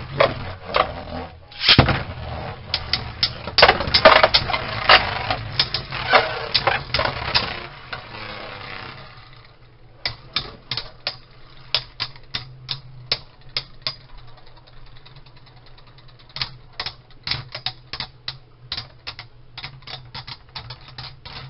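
Two Beyblade Burst spinning tops whirring and clattering against each other and the walls of a plastic Beystadium. The clicks and knocks come thick and fast for the first half, then thin out to scattered taps as the tops slow.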